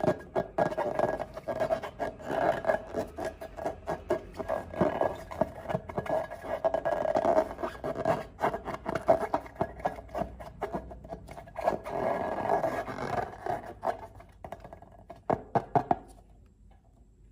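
Rubber balloon squeaking: a sustained, buzzy rubber tone mixed with dense crackling and clicking, swelling and fading irregularly, then stopping near the end.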